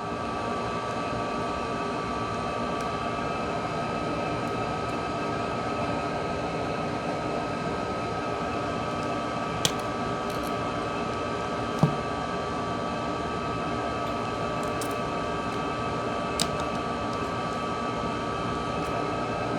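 A steady mechanical hum with a thin high whine running through it. Over it come three small clicks as phone parts are handled, the loudest about midway.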